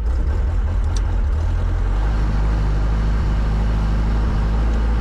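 Small helicopter's engine just after start-up, running unevenly at first and settling into a steady idle about two seconds in, with the clutch still engaging the rotor drive.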